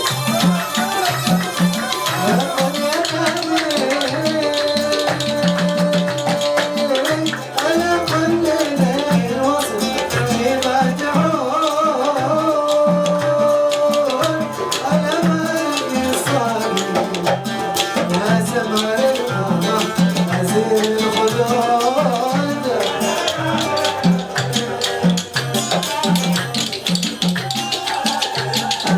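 Arabic band music: an instrumental passage, with a melody instrument playing held and sliding notes over a steady, regular drum and percussion beat.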